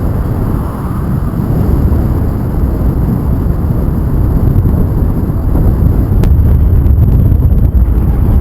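Loud, steady rush and rumble of wind buffeting the microphone as the paraglider flies through the air.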